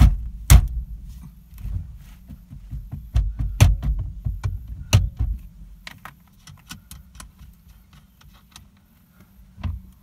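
Sharp thumps and knocks as a Subaru Forester's steering wheel is struck on either side to jar it loose from the steering column, the loudest about half a second in and twice more in the middle, followed by lighter clicks and rattling at the hub as the loosened wheel is worked off.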